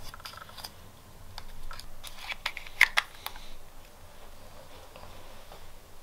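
Small clicks and clatters of hands handling small hard objects, with two sharp clicks about three seconds in, then quieter.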